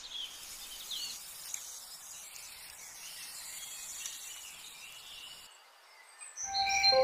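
Faint outdoor ambience: a steady hiss with a few short bird chirps. It cuts out briefly near the end, and music with held tones comes in just before the end.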